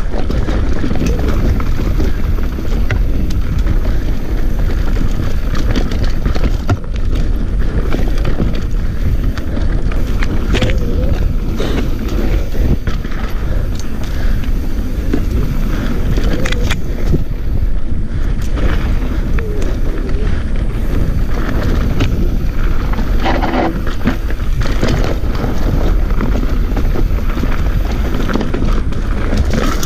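Mountain bike descending a rough dirt trail at speed: tyres rolling over dirt and rocks, with the frame and chain rattling and knocking and wind buffeting the camera's microphone.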